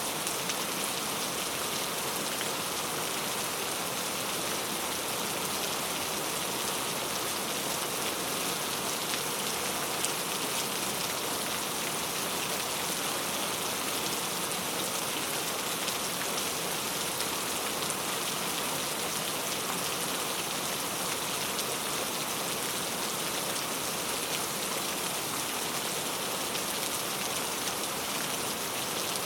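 Steady rainfall, drops pattering on a surface, an even hiss with fine scattered drop ticks that does not change.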